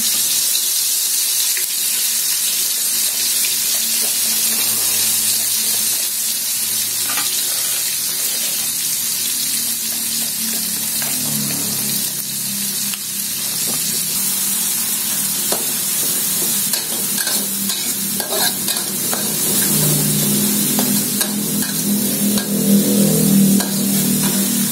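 Raw ground spice paste of chilies, shallots, garlic, candlenut and ginger sizzling steadily as it fries in hot oil in a wok, being sautéed until fragrant. A spatula stirs it and scrapes against the pan now and then.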